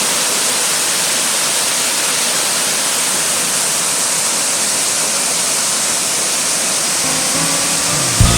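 Waterfall: a steady, hissing rush of falling water, with no break. About seven seconds in, the next piece of music starts to come in faintly over it.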